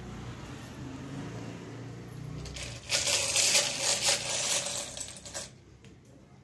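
Small hard pieces clinking and rattling together for about two and a half seconds, starting about three seconds in, over a low background murmur.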